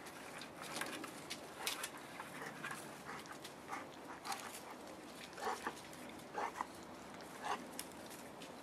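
Boerboel puppies playing on leaf-strewn ground, with scuffling and rustling and a few short whimpers in the second half.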